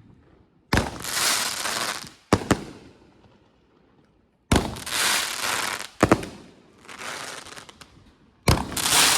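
Consumer aerial fireworks going off: five sharp bangs a second or two apart, most followed by a second or so of crackling hiss, with short quiet gaps between.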